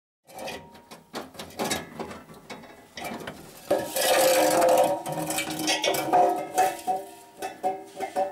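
Old rusty exhaust resonator of an Opel Corsa being dragged out from under the car: metal clanking and scraping over the floor, the hollow steel can ringing. The loudest part is a longer scrape about four seconds in.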